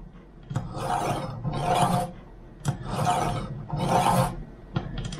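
Kitchen knife drawn through the ceramic rods of a Vulkanus G2 knife sharpener: four rasping scrapes, about one a second, with a faint metallic ring. This is the final polishing stroke on the ceramic that finishes the edge.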